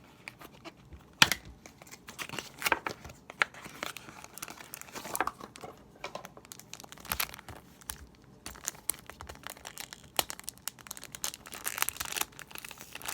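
Plastic wrapping on a new puzzle cube being crinkled and torn open by hand, in irregular crackles with a sharp rip about a second in.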